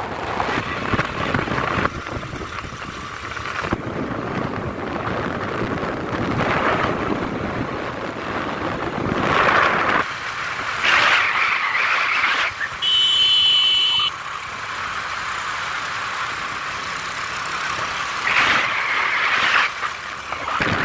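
Road and wind noise from a moving vehicle, a steady rush that swells and eases, with a brief high-pitched tone lasting about a second past the middle.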